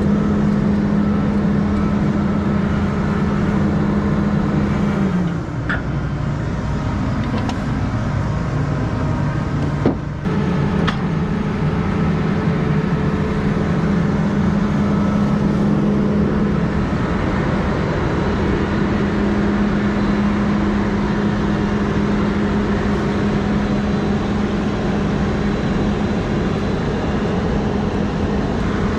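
Combine harvesting soybeans, heard from inside the cab: a steady machine drone whose main hum sags about five seconds in and comes back up after about ten seconds, with a single click about ten seconds in.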